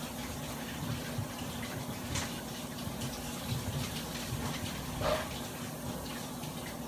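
Water running steadily from a kitchen tap into a sink, with a faint low hum beneath.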